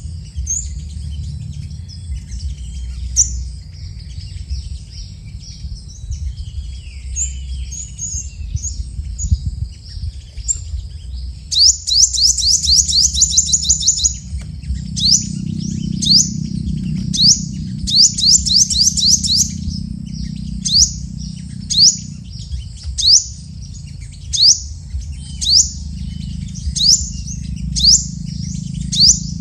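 Sunbirds calling: high, thin chirps, with two quick rattling trills in the middle, then a sharp rising note repeated about once a second, over a low steady rumble.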